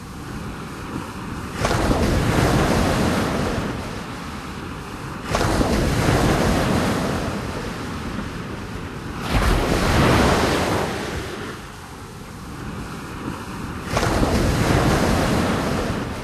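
Sea waves breaking: four surges of surf, each coming in suddenly and washing away over a few seconds.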